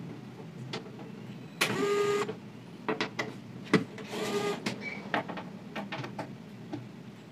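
DeWalt cordless electric screwdriver whirring in two short bursts, about two seconds apart, backing out the bolts that hold a steel table-saw top to its side casing. Sharp clicks and knocks of the tool and metal come between the bursts.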